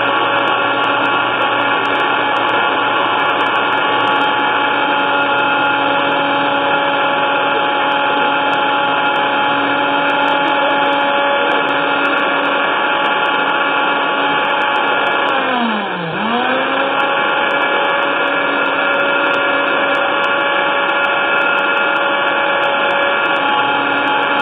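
Countertop blender motor running steadily at speed. About sixteen seconds in, it briefly slows with a falling pitch, then comes back up to speed.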